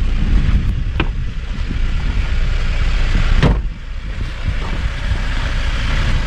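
Wind buffeting the microphone, a heavy low rumble that rises and falls, with two sharp knocks, about a second in and again a little past the middle.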